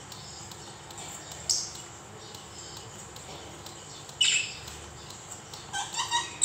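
Buzzer on a Fujika FJ18A walk-through metal detector gate's main board sounding short electronic alarm chirps as its tone types are stepped through: a brief high chirp about a second and a half in, a falling sweep about four seconds in, and a quick run of warbling beeps near the end.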